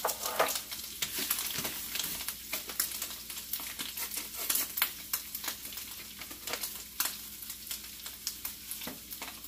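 Ground taco meat and onion sizzling and crackling in a skillet, with a utensil scraping the pan as the meat is stirred.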